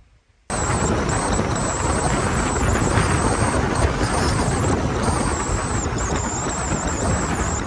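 Car driving over a rough road: loud, steady road and wind noise that cuts in suddenly about half a second in, with a thin, high whine wavering above it.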